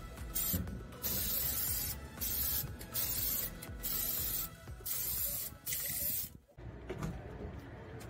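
Aerosol can of 2000°F ceramic exhaust paint spraying in a series of short hissing bursts, each under a second, with brief pauses between them; the spraying stops about six seconds in.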